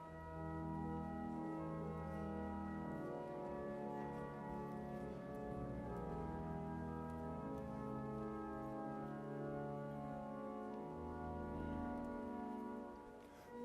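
Church organ playing a quiet sustained introduction to a hymn, with held chords over long bass notes.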